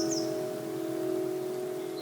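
Soft background music: a chime-like chord held and slowly fading away.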